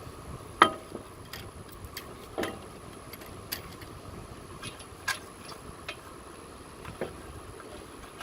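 Sharp metallic clinks of a hand wrench and 21 mm socket working the wheel's lug nuts: four distinct clinks a second or two apart, the first the loudest, with fainter ticks between.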